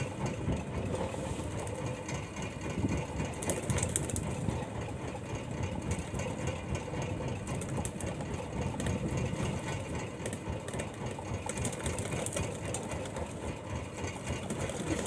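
Fishing boat's engine running steadily, with brief hissing now and then.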